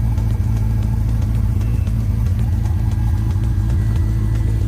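G-body Oldsmobile Cutlass engine idling steadily with a low exhaust rumble, still warming up after a cold start.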